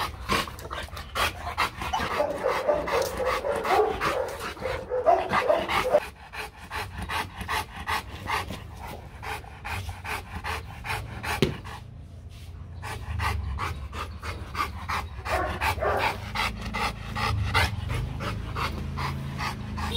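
Rottweiler panting, quick even breaths about three a second.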